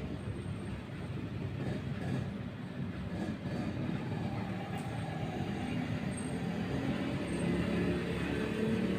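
Steady low rumbling background noise, with no speech.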